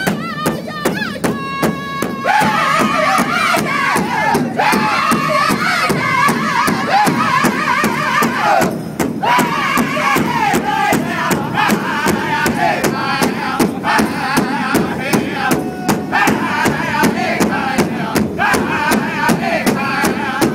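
A First Nations drum group: a drum struck in a steady, even beat while several singers chant in high, wavering voices. More voices join about two seconds in.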